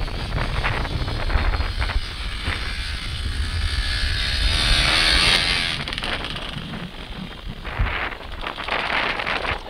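Dirt bike converted to a 2Moto snow bike, its engine running as it rides past through snow, loudest about five seconds in and fading after. Wind rumbles on the microphone.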